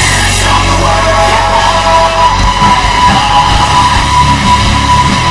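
Hard rock wrestling entrance theme music with heavy, boosted bass and a high note held from about a second in.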